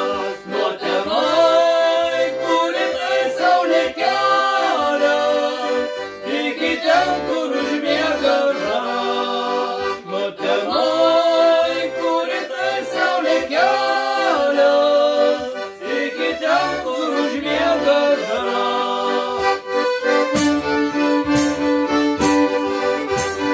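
Two men singing a folk song in unison to a square button concertina. About twenty seconds in the singing stops and a bowed fiddle takes up the tune over a held concertina note, with light regular clicks of percussion.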